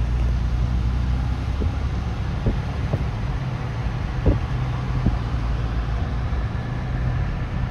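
Steady low rumble of road traffic heard from a moving car, with a few light clicks.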